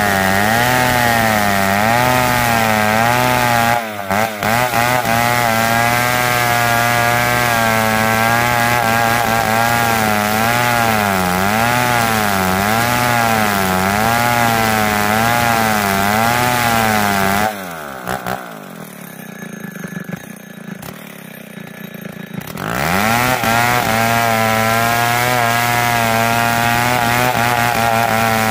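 Large chainsaw ripping lengthwise along a log, its engine pitch wavering up and down as the load on the chain changes. A little past halfway it drops to idle for about five seconds, then revs back up and carries on cutting.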